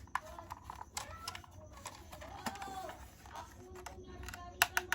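Hands handling a plastic toy and its packaging: scattered small clicks and taps, a short squeak about halfway through, and a quick run of louder clicks near the end.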